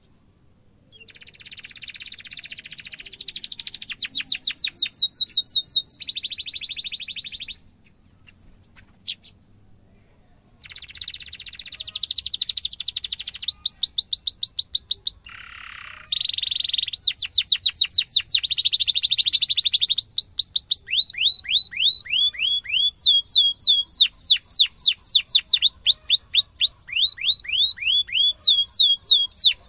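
Domestic canary singing a long rolling song: fast buzzy trills alternating with runs of quick, repeated falling whistled notes, one phrase straight into the next. About seven and a half seconds in, the song stops for about three seconds, then resumes.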